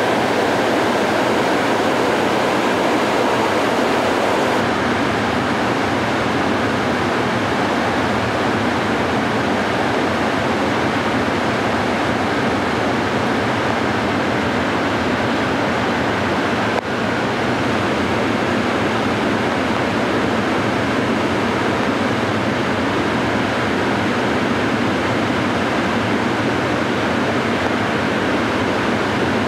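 Floodwater pouring over a dam spillway and churning in the river below: a loud, steady rush, with a brief dip about seventeen seconds in.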